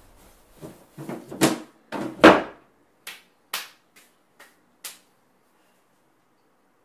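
A cabinet drawer handled roughly: a run of loud knocks and scrapes, then five short sharp clicks about half a second apart.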